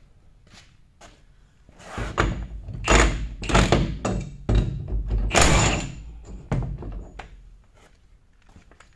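Cordless impact wrench run in several loud bursts on the bolts of a sweeper broom attachment, between about two and seven seconds in.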